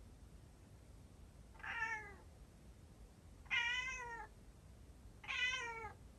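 Calico cat meowing three times, each call about half a second to a second long and dropping in pitch at the end. The calls come from a former stray, and the owner takes them as the cat asking to be let outside.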